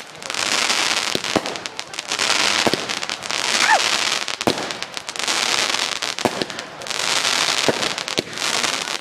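Fireworks going off: crackling, fizzing bursts every second or two with sharp bangs among them.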